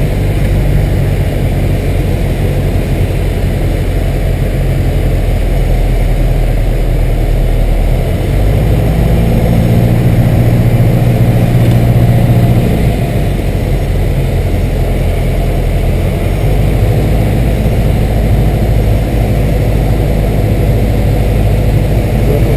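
Piper PA-28 Cherokee's piston engine and propeller droning steadily, heard from inside the cockpit on approach to land. The engine note changes and grows a little louder from about eight to thirteen seconds in, then settles again.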